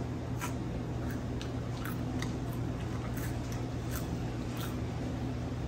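Close-up chewing and biting of battered fried food and fries: a string of short, crisp clicks at irregular intervals. A steady low hum runs underneath.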